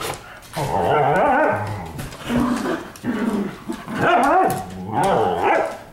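Dogs growling in play during rough wrestling, in about four drawn-out bouts whose pitch wavers up and down.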